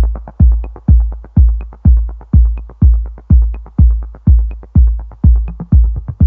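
Electronic background music: a deep kick drum on a steady beat, about two beats a second, with quick hi-hat ticks between the kicks.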